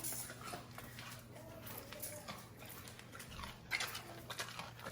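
Faint sounds from a pet farm animal, with a short, soft vocal sound about one and a half seconds in and scattered small clicks.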